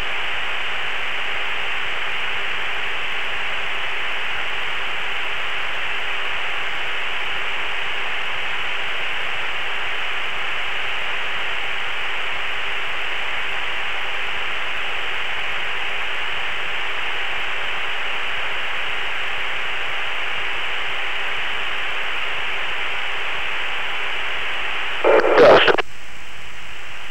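Steady hiss of an aircraft radio channel between transmissions, a narrow telephone-like band of static. About 25 seconds in comes one brief, louder crackling burst.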